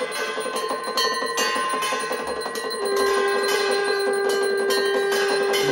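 Aarti instruments played together: a brass hand bell and a hanging metal gong struck rapidly and ringing, and a conch shell blown in one long steady note from about halfway in.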